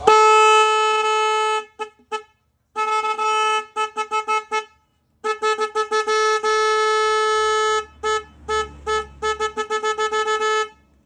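Truck horn working without compressed air, sounding one steady note in long blasts of about two seconds broken by short toots, then a quick run of short toots near the end.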